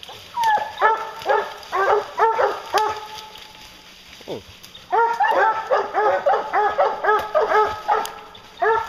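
Hounds baying at a black bear up a tree: repeated deep barks with a falling pitch, a lull about three seconds in, then several dogs barking over one another near the end, the sound of a bear treed.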